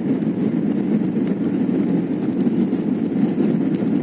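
Steady jet-engine and rushing-air noise inside an airliner cabin during the climb after takeoff: a low, even noise at a constant level.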